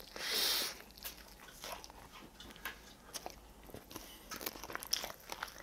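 Eating crispy Honey Combo fried chicken wing: a burst of crunching in the first second, then scattered crunches and mouth clicks of chewing.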